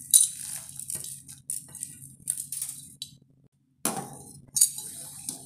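A steel spoon knocking and scraping against a steel pan while stirring rice into just-boiled milk: a run of sharp clinks, the first the loudest, over a low steady hum. The sound cuts out briefly just past halfway.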